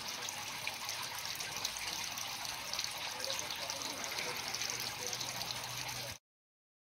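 Steady trickling water, an even splashing hiss that cuts off suddenly about six seconds in.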